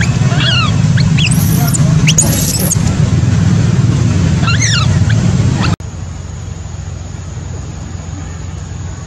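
Newborn macaque giving repeated high-pitched distress cries, rising and falling wails, over a loud steady low rumble. About six seconds in, the sound cuts off abruptly to a quieter low hum with faint chirps.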